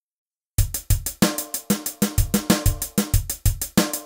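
Funk drum-kit beat: hi-hat ticks over bass-drum and snare hits in a tight, busy rhythm, starting about half a second in after silence.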